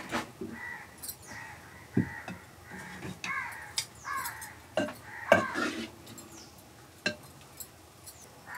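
A clay lid is lifted off a clay cooking pot and a coconut-shell ladle knocks against the pot as rice porridge is scooped out, giving a few sharp knocks and clinks. A bird calls several times in the background, each call falling in pitch.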